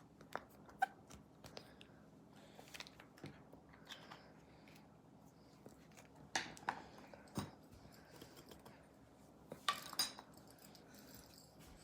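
Slime being handled and mixed: scattered small clicks, snaps and crackles with a few light taps, loudest in two clusters in the middle and near the end.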